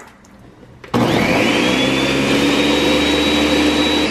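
Countertop blender switching on about a second in and running steadily, its motor whine rising in pitch as it spins up and then holding level while it mixes an egg batter.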